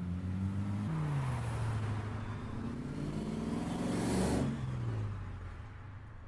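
A motor vehicle engine running. Its pitch drops about a second in, then climbs to a loud peak around four seconds in and falls away as it passes by.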